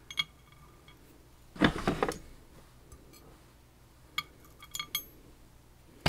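Small metal lock parts and tools clinking and rattling against each other as a lock is being taken apart. The louder rattle comes about a second and a half in, with scattered light clicks before and after it.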